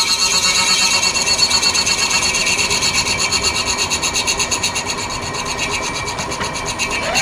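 Milling machine end mill cutting a new gear tooth into brazed filler on a cast-iron gear, a steady, fast-pulsing metal-cutting chatter as the gear is fed past the cutter. A rising whine starts right at the end.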